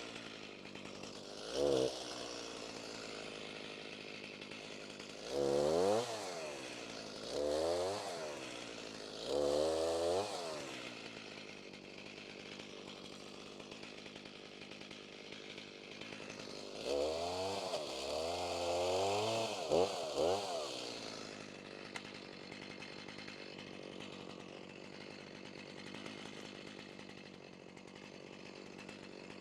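Stihl Farm Boss MS290 two-stroke chainsaw idling and revved up again and again, each rev rising and falling back in pitch: a few short blips, then a longer run of revving before it settles back to a steady idle.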